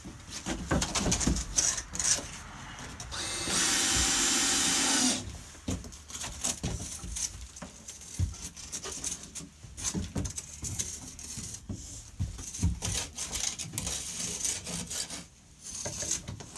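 Cordless drill running steadily for about a second and a half, driving a screw into a wooden framing member. Scattered knocks and clicks of the lumber being handled and positioned are heard around it.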